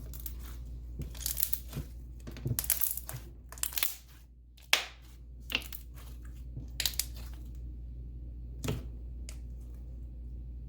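Hands squishing and stretching a thick slime: irregular crackling pops and clicks, the loudest a sharp pop about five seconds in, thinning out near the end.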